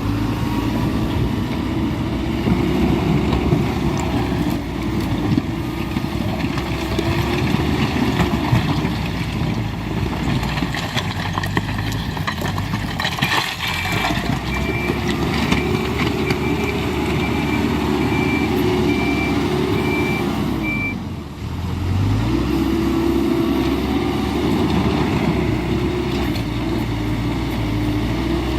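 Hidromek 102B Alpha A5 backhoe loader's diesel engine working steadily, pushing marble waste. About halfway through a string of reversing beeps sounds for about six seconds as it backs up. Then the engine dips briefly and revs up again.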